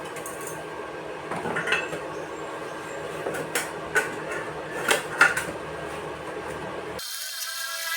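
Metal parts clinking and knocking against each other as they are handled during a workshop build, about half a dozen sharp knocks over a steady background hum. About seven seconds in, the sound cuts abruptly to a different, wavering tone.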